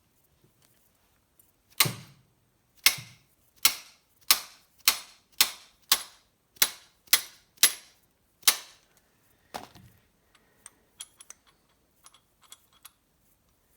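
About a dozen sharp hammer taps on metal, roughly two a second, driving a piston pin home on a Mercury Sport Jet two-stroke engine. Lighter clicks of parts being handled follow near the end.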